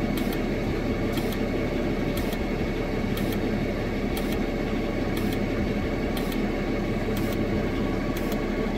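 DAF LF truck's diesel engine idling steadily while the removed AdBlue dosing valve sprays into a measuring cylinder during a metering test, each injection a short hiss about once a second.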